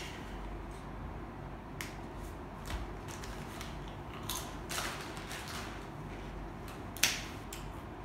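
Foil snack packet crinkling and rustling in the hands in short bursts, with one sharp click about seven seconds in, the loudest sound.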